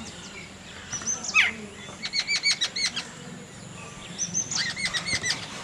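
Common tailorbird calling: a single sharp falling note, then two runs of rapid repeated chirps, about five a second, the first about two seconds in and the second near the end.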